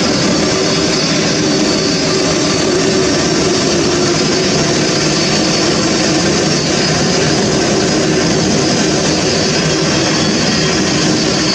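Airbus A380 jet engines running: a steady, loud rushing noise with a faint steady hum underneath.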